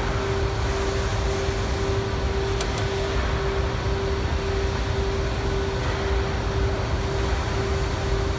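Steady factory machinery noise: a low rumble under a hum that pulses evenly about twice a second.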